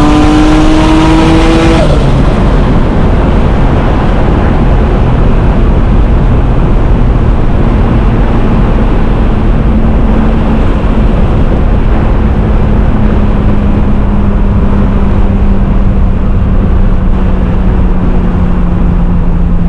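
Turbocharged BMW M50 straight-six in an E36 under hard acceleration. The engine pitch climbs for about two seconds, then gives way to a loud, dense rushing sound of the car at speed, with a low engine tone slowly falling over the second half.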